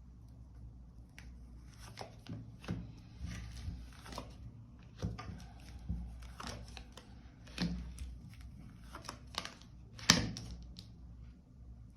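Tarot cards being shuffled and handled: an irregular run of soft papery swishes and light slaps, the sharpest about ten seconds in.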